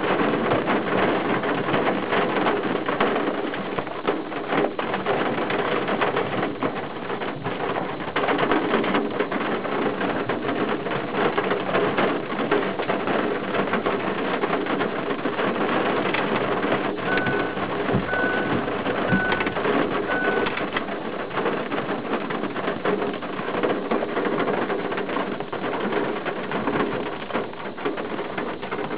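Thunderstorm rain falling steadily, pattering on window glass with many small drop ticks. About two-thirds of the way through, four short high beeps sound about a second apart.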